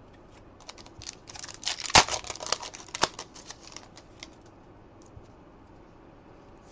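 Foil trading-card pack being torn open and its wrapper crinkled: a burst of crackling about a second in, with a sharp snap about two seconds in and another about a second later.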